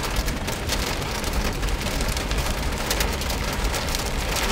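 Heavy rain pelting the car's roof and windshield, heard from inside the moving car: a dense, steady patter of countless drops over a low rumble of the car on the road.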